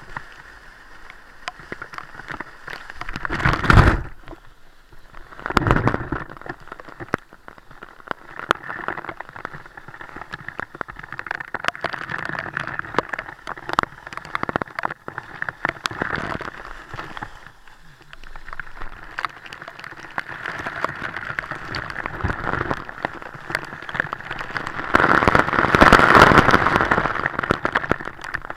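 Water spattering and rushing, with many small droplet-like clicks. There are loud sudden surges about three and a half and six seconds in, and it builds louder near the end.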